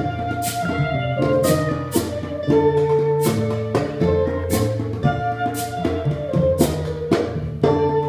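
Live acoustic ensemble playing. A transverse flute holds long melody notes over cello, acoustic guitar and drums struck with sticks, with a sharp drum hit about once a second.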